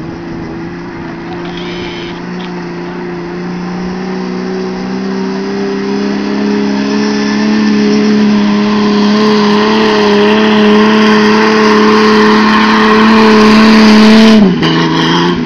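Jeep engine held at high revs under load while the Jeep climbs a sandy slope with its wheels spinning. The engine note rises slowly and grows louder, then drops suddenly near the end as the revs fall away.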